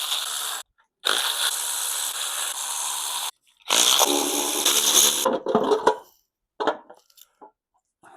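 A power tool run in three bursts of one to two seconds each, undoing the bolts that hold the flex plate on a Mercedes M110 engine. A few short knocks follow.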